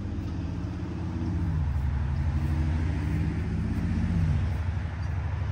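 A motor vehicle's engine passing by, growing louder and then fading, its pitch dropping about a second and a half in and again near the end.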